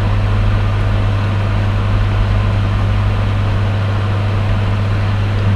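A steady, loud low hum with a hiss over it, unchanging throughout.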